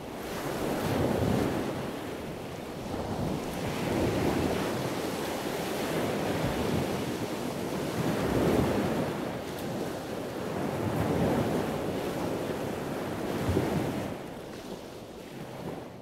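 Ocean surf: waves washing in and out, the rush of water swelling and easing every few seconds.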